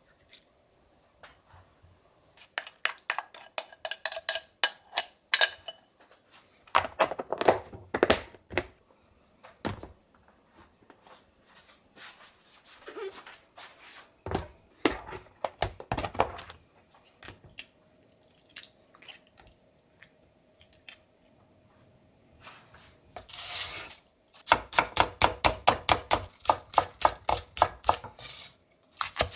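Kitchen handling noises: clinks and knocks of dishes and utensils, some with a short ring, and a few heavier thuds. Near the end, a chef's knife chops a green onion on a wooden cutting board in a quick even run of about four or five cuts a second.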